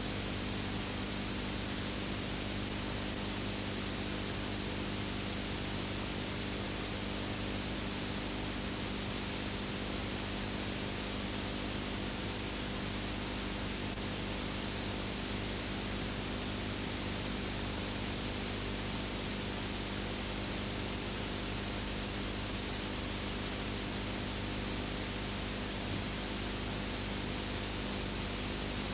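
Steady hiss with a low electrical hum and nothing else: the background noise of a transfer of a film that has no soundtrack.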